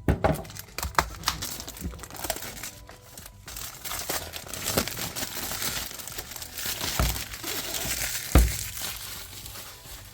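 Plastic shrink wrapping being peeled and crumpled off a cardboard product sleeve, a dense crinkling and crackling with a few handling knocks, the sharpest near the end.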